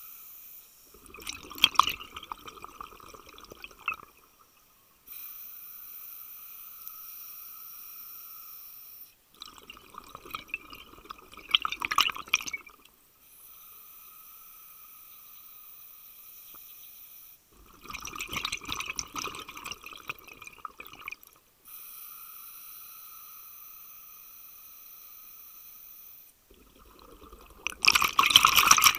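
Scuba diver breathing through a regulator underwater. There are four bubbling rushes of exhaled air about eight seconds apart, with a steadier, quieter hiss of inhaling through the regulator in between.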